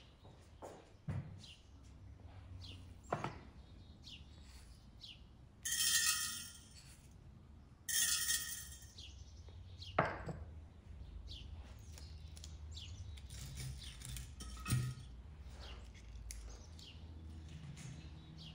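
Small birds chirping throughout, with a few sharp knocks and clinks as a large glass jar and bowls are handled. About six and eight seconds in come two louder rushing noises of about a second each.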